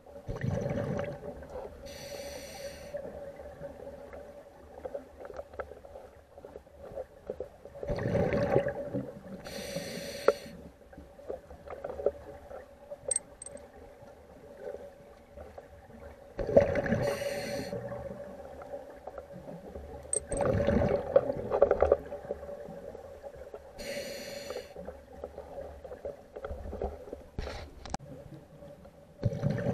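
Ambient soundscape: a steady held tone with slow swells that come back about every eight seconds, each followed by a short breathy hiss.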